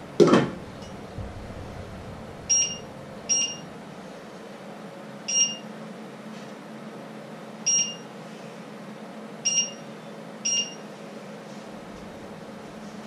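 A stainless steel saucepan lid clanks onto its pot and rings briefly. Then come six short electronic beeps, irregularly spaced, from the electric hob's touch controls as its settings are pressed.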